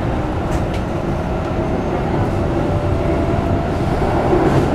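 Keikyu New 1000 series train with Toyo IGBT-VVVF traction equipment running, heard from inside a passenger car: a steady rumble of wheels on rail. A faint steady tone sits over it from about one to three seconds in.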